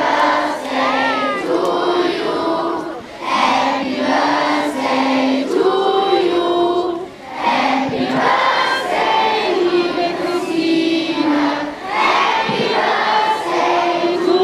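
Large group of children singing together in unison: a slow song in phrases with long held notes and short breaths between them.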